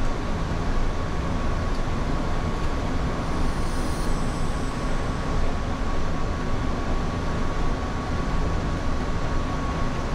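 Steady flight-deck noise inside a Boeing 787 cockpit: the constant rush of airflow and air conditioning. A faint, steady high tone runs throughout.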